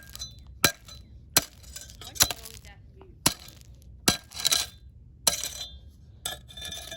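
A pair of eyeglasses being struck again and again, about seven sharp blows with the glass lenses clinking and cracking as they shatter.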